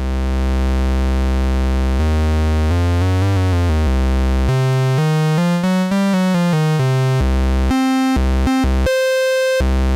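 Raw square-wave output of an Animodule Lil Monster analog VCO, a triangle-core Eurorack oscillator. It starts as a low steady tone, then steps and sweeps up and back down in pitch, and jumps to higher notes near the end. Its tone colour shifts as the pulse width is varied.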